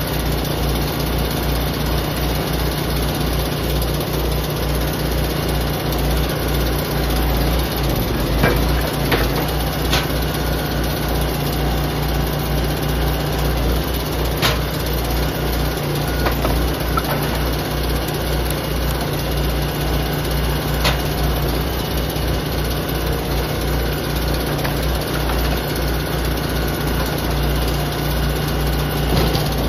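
Engine of a hydraulic log splitter running steadily, with a few sharp cracks as rounds of wood split on the wedge.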